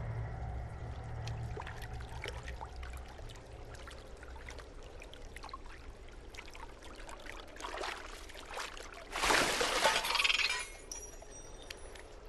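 Water lapping and dripping, with faint scattered drips throughout, as a capuchin monkey swims and climbs out. A brief splash comes about eight seconds in, and a louder sloshing splash runs for about a second and a half from about nine seconds.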